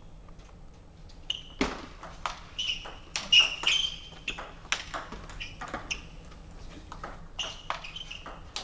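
Table-tennis rally: a celluloid ball clicking off paddles and the table in quick exchanges, with short high squeaks of shoes on the sports-hall floor and a heavy foot stamp about a second and a half in.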